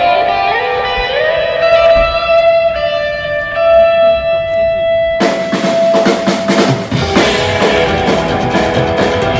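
Rock music: an electric guitar plays held notes with a slide up in pitch, then drums and the full band come in suddenly about five seconds in.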